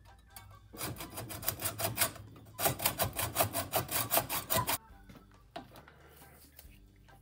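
Hacksaw cutting through a rusty metal transmission line clamped in a bench vise: two runs of quick back-and-forth rasping strokes, about five a second, the second run louder, stopping shortly before the five-second mark.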